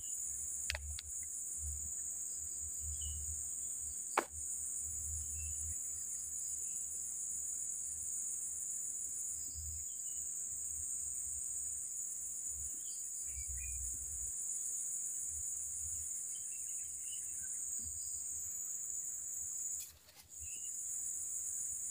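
Steady high-pitched chorus of insects, crickets or the like, with a single sharp click about four seconds in; the chorus drops out briefly near the end.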